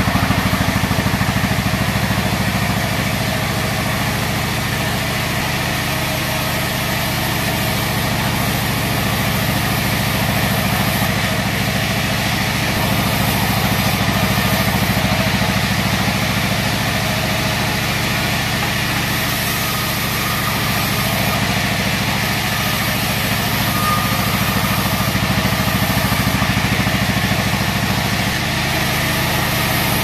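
A 42-inch band sawmill running steadily as its band blade saws lengthwise through a teak log. It makes a constant low machine drone with an even hiss of cutting over it.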